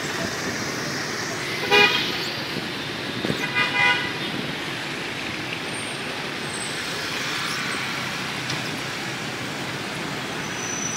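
City street traffic heard from a moving motorbike: a steady rush of road and engine noise. A vehicle horn honks once, briefly, about two seconds in, then sounds in a few short toots around four seconds.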